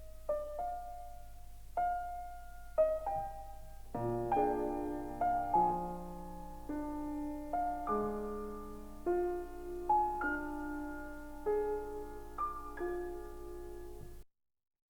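Slow, gentle solo piano music: single notes and soft chords that ring and fade one after another. The music cuts off suddenly near the end.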